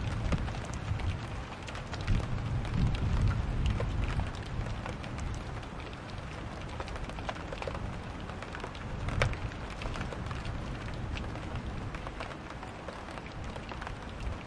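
Thunderstorm: steady rain falling, with scattered drop ticks, and a low thunder rumble in the first few seconds that dies away. A sharper single crack or drop stands out about nine seconds in.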